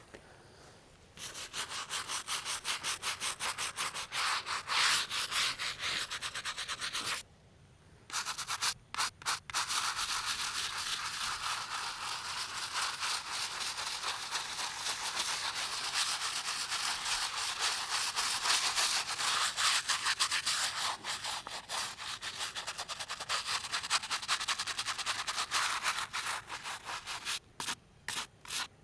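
A hand brush scrubbing a headstone that has been pre-treated with headstone cleaner, in quick back-and-forth strokes. The scrubbing stops for about a second some seven seconds in, then runs on, breaking into separate strokes near the end.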